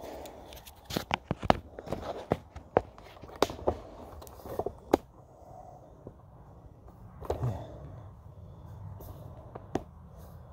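Footsteps and handling noise: irregular sharp clicks and knocks with some crunching and scraping, most frequent in the first five seconds and sparser after.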